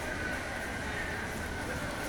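Steady running noise of a train ride, with a faint steady whine over the rumble.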